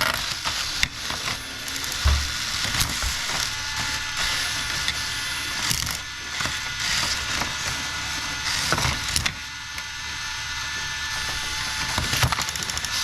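Hexbug mini battle bots (Sawblade and Whiplash) fighting in a plastic arena: a steady whir of small motors with repeated plastic clattering and knocks as the robots collide, and a heavier thump about two seconds in.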